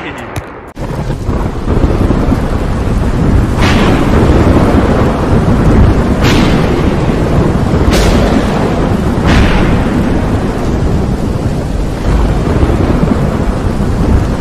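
Thunderstorm sound effect: a continuous low rumble of thunder over a steady hiss of rain, with four sharp thunder cracks spread through the middle.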